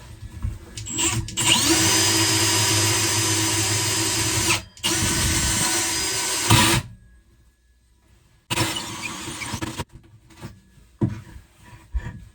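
Power drill boring a hole through plywood: the motor spins up about a second in and runs steadily for about three seconds, stops for a moment, runs about two seconds more and cuts off. After a short silence comes another shorter burst of rougher drilling noise, then a few knocks.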